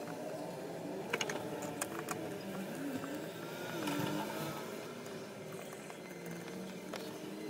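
Light metallic clicks and knocks from handling a mini lathe's quick-change tool post and its clamping lever, mostly about a second in and again near two seconds, over a faint wavering hum.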